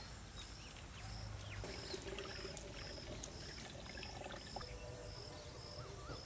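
Faint rural outdoor ambience: a steady run of short high chirps about two a second, with a few faint bird calls and a quickly wavering call near the end.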